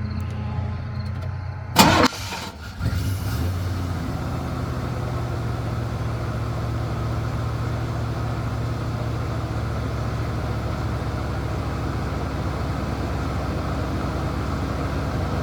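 Engine of a 1990 Chevrolet C1500 pickup being started: a loud clunk about two seconds in, then a steady idle.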